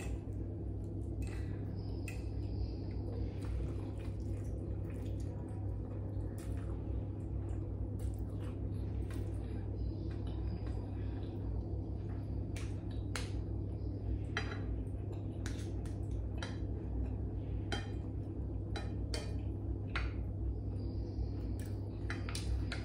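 Fork and spoon clinking and scraping against plates and a bowl, in short irregular clicks, while a meal of dried fish and noodle soup is eaten. A steady low hum sits underneath throughout.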